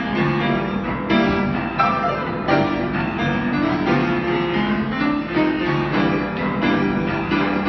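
Grand piano playing an upbeat tune, a steady run of notes and chords.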